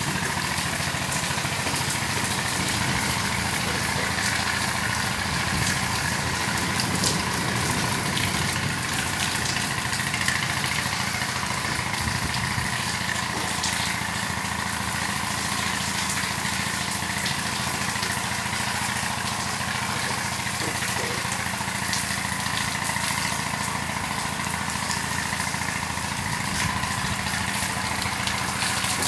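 Heavy stormy rain pouring down steadily in a dense, even hiss, with a steady low hum underneath.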